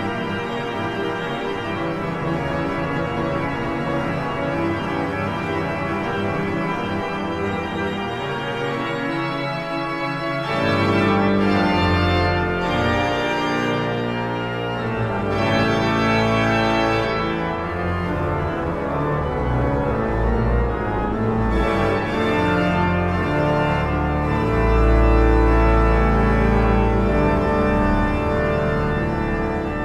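Pipe organ playing slow chords of held notes. About a third of the way in, deep bass notes come in and the sound grows fuller and louder, with a very low bass note held near the end.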